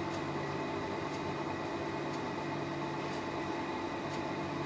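A steady machine hum made of several constant tones, unchanging throughout.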